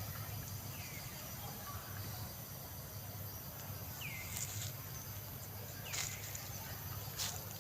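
Faint outdoor ambience: a steady low hum with three short, falling chirps and a few brief high clicks.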